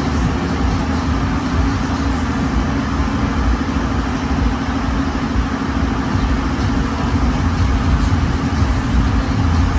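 Steady, loud low hum and rumble of running machinery, unchanging throughout.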